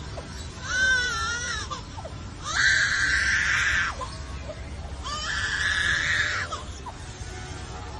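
A bird mimicking a baby's cry: three drawn-out wailing calls of about a second and a half each, the first wavering up and down in pitch, the other two held steadier.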